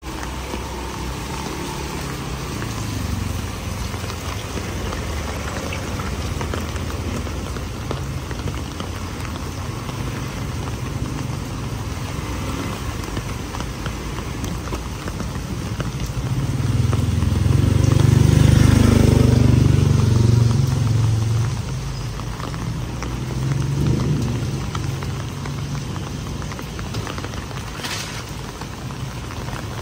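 Steady rain falling on a wet concrete lane, with a motor scooter riding up and stopping. A low rumble swells for about five seconds a little past halfway, then fades.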